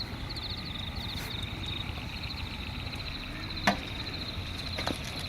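Insects chirping in a steady, high, pulsing trill, with one sharp knock a little over halfway through and a softer one near the end.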